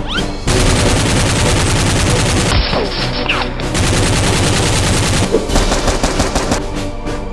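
Rapid automatic gunfire sound effect: a dense burst of fire starting about half a second in and lasting several seconds, then a handful of separate shots near the end, over dramatic background music.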